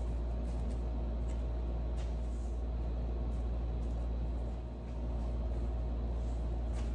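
Steady low machine hum, with a few faint clicks as bar clamps are set along a plastic-wrapped, glued-up wood block.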